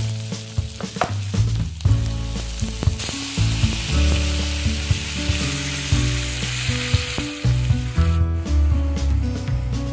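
Onion, garlic and tomato sizzling in hot oil in a frying pan while a spatula stirs them; the sizzle grows louder about three seconds in. Low background music runs underneath.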